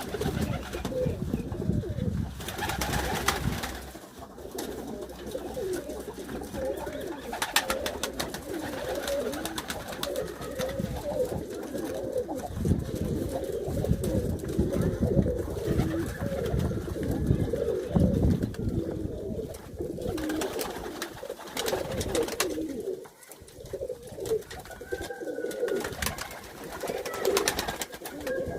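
Several domestic pigeons cooing at once in a dense, overlapping chorus, with scattered sharp clicks.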